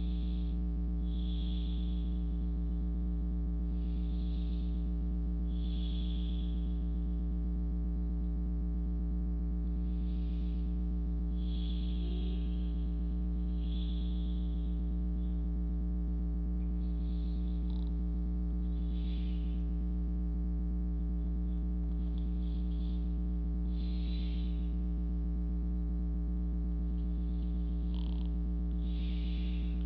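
A steady low hum runs throughout, with soft, slow breaths over it about every two seconds.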